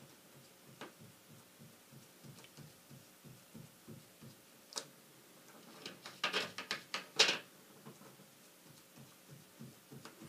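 Soft, repeated dabbing of a makeup sponge through a plastic stencil onto cardstock, then a short cluster of crinkly clicks about six to seven seconds in as the sponge is dipped into a small foil tray of decoupage medium.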